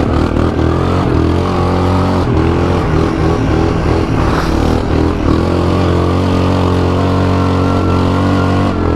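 ATV engine running under throttle, its pitch wavering up and down for a few seconds, then holding steady.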